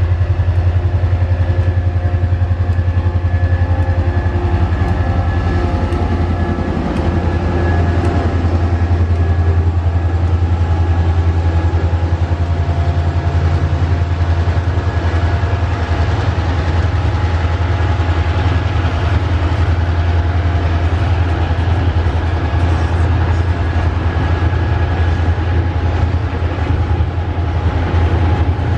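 Tasrail diesel-electric locomotives 2054 and TR07 running past with a steady low engine drone, their engine tones fading after about eight seconds. Coal hopper wagons and container flats follow, their wheels rumbling and clattering steadily on the rails.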